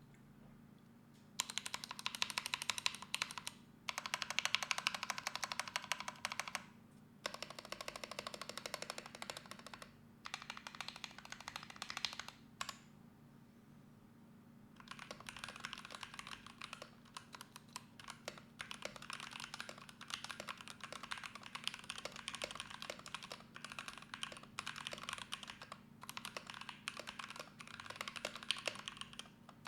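Typing on a Drop Alt 65% mechanical keyboard with Gateron Yellow Pro linear switches, lubed with 205g0 and filmed, with tape mod and polyfill in the case. The typing comes in bursts with short pauses and a gap of about two seconds past the middle, then runs on steadily through the second half.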